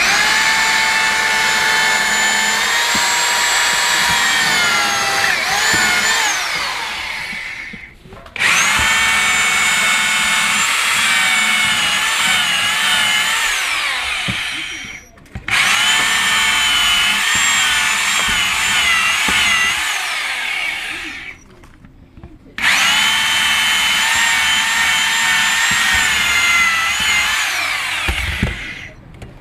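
Corded drill with a masonry bit and countersink boring four holes through compressed fibre-cement sheet flooring. Each hole is a steady high motor whine of about six seconds, wavering slightly as the bit cuts, then winding down when the trigger is released.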